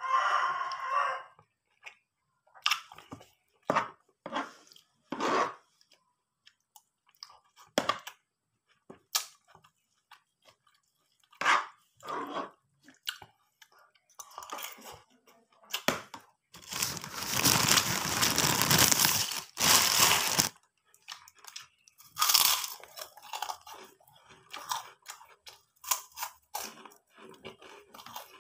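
Close-miked chewing and crunching of food in the mouth, coming in short scattered bursts. Past the middle comes a loud continuous stretch of crunching or crackling noise lasting about four seconds.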